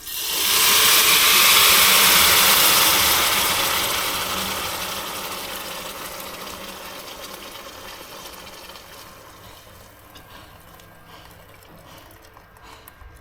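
Hot pan sizzling loudly as liquid fish-paste broth hits hot oil, the hiss bursting up at once and slowly dying away over several seconds.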